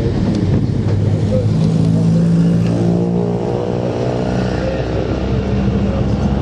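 Great Orme cable-hauled tram running along its track, heard from on board: a steady rumbling ride noise, with a humming drone that comes in about two seconds in and fades near the end.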